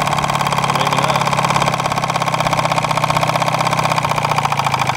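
Small Yamaha tiller outboard motor idling steadily with a fast even pulse, run out of the water with no water-pump impeller until it is boiling hot.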